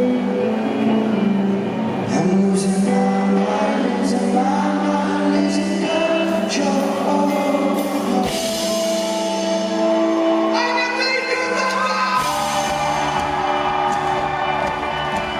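Rock band playing a song live with a lead singer over the band. The bass drops out about halfway through and comes back in near the end.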